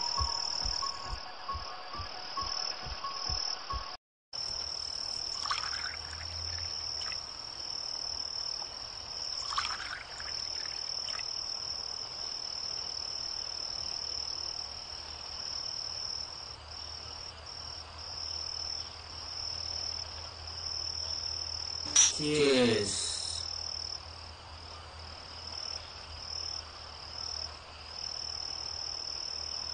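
Steady insect chirring, cricket-like, over a low hum, after background music fades out and the sound briefly drops out about four seconds in. About 22 seconds in, a short, loud sound falls steeply in pitch.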